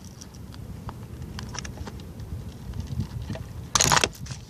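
Flat screwdriver prying the plastic mesh strainer off a fuel pump's pickup: small clicks and ticks of plastic and metal, then a short, louder scrape near the end as the strainer comes free.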